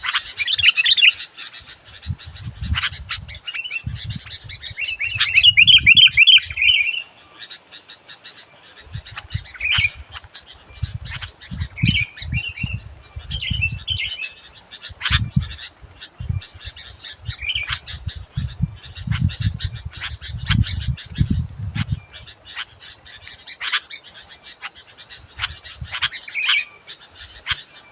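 Sooty-headed bulbul singing short chattering phrases again and again, with a loud run of notes about five seconds in. Low pulsing rumbles come and go underneath.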